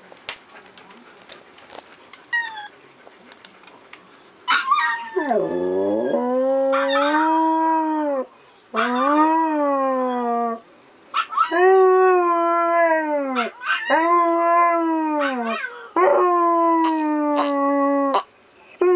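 Siberian husky howling: after a few seconds of faint clicks, about five long howls, each lasting around two seconds, rising a little and then falling away at the end, with short breaks between them.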